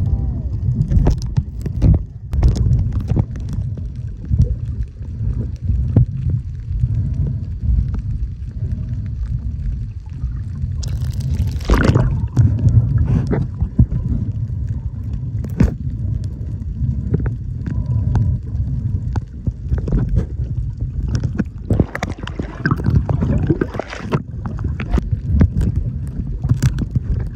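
Water sloshing and gurgling around a camera's microphone, with a steady low rumble and scattered knocks and splashes; a brighter splash comes about eleven seconds in.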